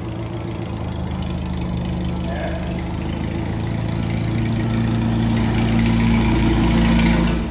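Engine of a vintage-style open roadster idling steadily, growing louder over the seconds.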